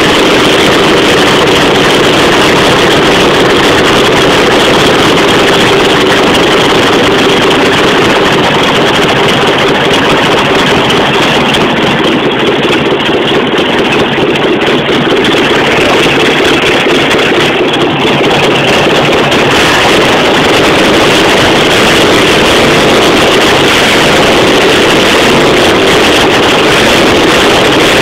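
VW camper engine, out of the van on a test stand, running steadily throughout.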